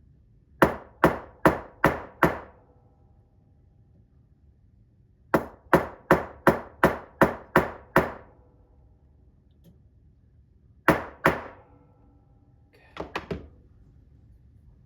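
Lightweight hammer tapping a pin vise to drive a new bushing into a cuckoo clock plate: five even taps, a pause, eight more at about two and a half a second, then two, each with a short metallic ring. A few faint clicks near the end.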